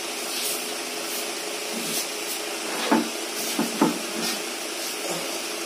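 Steady hiss of background noise, with two or three short vocal sounds that fall in pitch about three to four seconds in.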